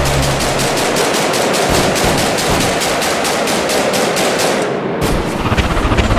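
A rapid, even run of sharp bangs like machine-gun fire, about eight a second, stopping about five seconds in, after which music comes back in.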